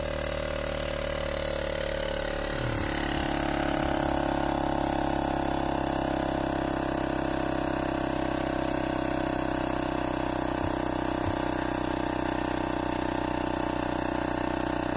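Handheld electric air compressor running steadily, getting a little louder about three seconds in. It is pressurising an injector-flushing rig's cleaning-fluid bottle and fuel line to 2–2.5 atmospheres.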